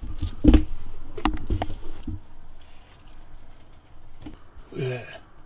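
Several sharp knocks and thumps with a low rumble in the first two seconds, the loudest about half a second in, from the camera and a sneaker being handled and bumped in a hurried move. After that come fainter scrapes and taps.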